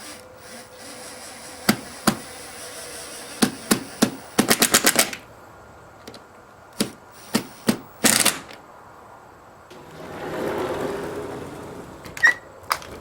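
Sharp clicks and taps of a latch being screwed onto a sliding glass door's frame, including a fast run of about ten clicks a second. Near the end the sliding glass door rolls along its track with a squeaky noise for about two seconds; this squeak is the door's own, not the new latch.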